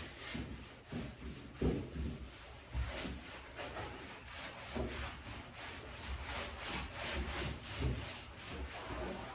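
Paper towel rubbed back and forth over a freshly sanded sheet-metal car trunk floor wet with degreaser, in rapid, steady scrubbing strokes.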